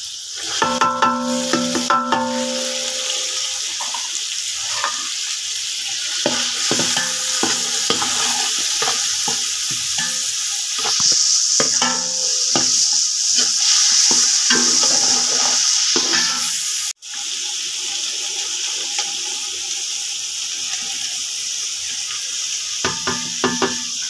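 Spices and strips of carrot and potato frying in hot oil in a metal pot, a steady sizzle, while a spatula is stirred and scraped around the pot with repeated knocks and scrapes. There is a brief metallic ringing near the start, and the sound cuts out for an instant about two-thirds of the way through.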